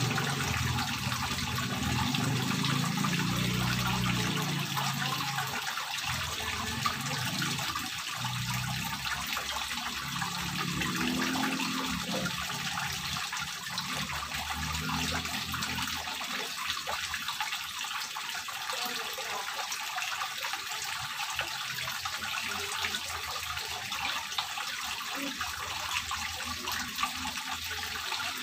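Water from a terrace wall fountain trickling and splashing steadily as it runs down a grooved stone panel and falls into a small pond. A low rumble underneath fades out over the first dozen seconds.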